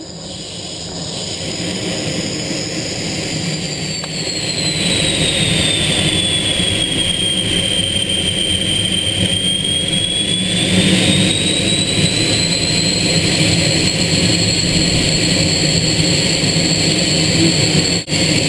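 Aero L-29 Delfín's single turbojet engine passing with a loud rushing roar and a high-pitched whine. The whine dips in pitch in the middle and climbs back. The sound builds over the first few seconds and briefly drops out near the end.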